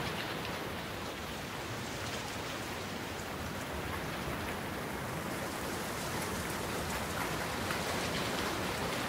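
Steady rain falling: an even hiss with scattered drops ticking.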